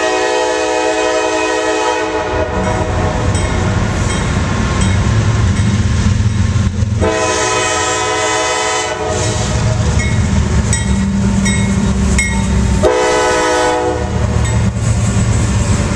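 A CSX GE diesel freight locomotive's multi-note air horn sounds three times as the locomotive approaches and passes: a long blast at the start, another about seven seconds in, and a shorter one about thirteen seconds in. Between the blasts the locomotive's diesel engine rumbles with the rolling train.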